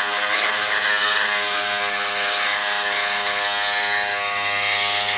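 Dremel rotary tool running steadily, grinding a bevel into the edge of a piece of motorcycle plastic to prepare the joint for plastic welding. It gives a steady high whine with a grinding hiss.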